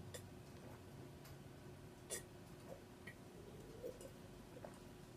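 Near silence: quiet room tone with a handful of faint, scattered clicks, the clearest about two seconds in.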